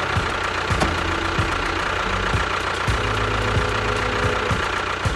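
Tractor engine running steadily with a regular knocking chug.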